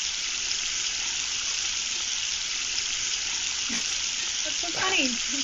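Steady hiss of a bathroom faucet running water into the sink, a tap that its shut-off valve is not stopping.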